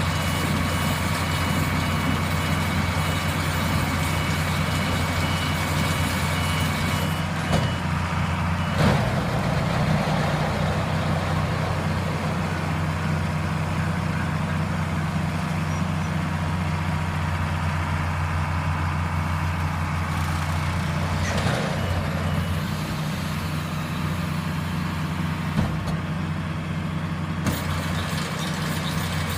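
Tractor engine running steadily while driving a Hesston 540 baler as it dumps a bale. A thin high whine stops about seven seconds in, followed by two sharp clunks within the next two seconds.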